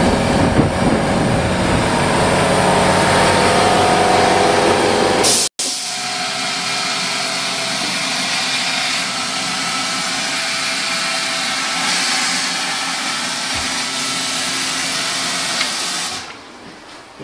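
Homemade gas turbine engine running: a steady, loud jet-like hiss with a whine of several steady tones. It breaks off abruptly at a cut about five seconds in, carries on at a lower level, and dies down near the end.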